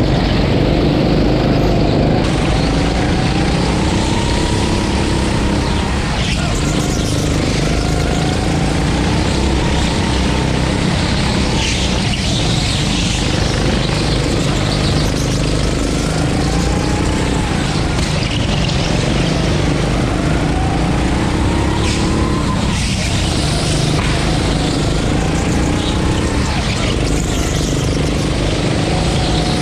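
A 9 hp gas go-kart engine racing around a track. Its pitch climbs in repeated sweeps as it accelerates and drops back sharply every few seconds as it comes off the throttle for corners.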